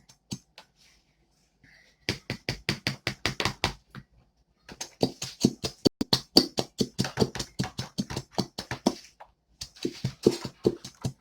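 Slime being squished and kneaded by hand, making rapid wet clicks and pops several times a second in runs of a few seconds, with short pauses between.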